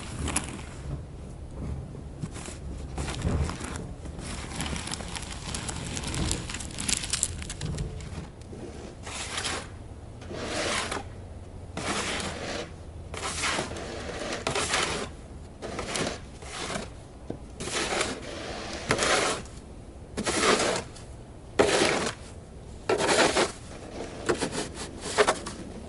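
Snow shovel scraping snow along a sidewalk in repeated strokes, roughly one every second or so, louder in the second half.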